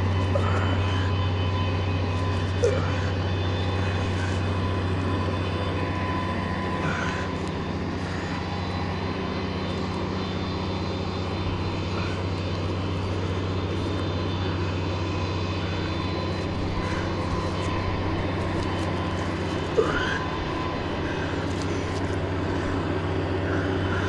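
A steady, unchanging low engine drone with faint higher steady tones over it.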